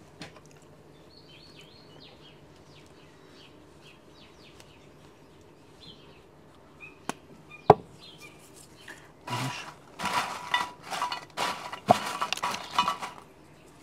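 Cheddar being grated on a rasp grater over a dish of tortilla chips: faint scraping at first, then two sharp clicks about seven seconds in. For the last few seconds there is a run of loud crunching as the Doritos are pressed down by hand.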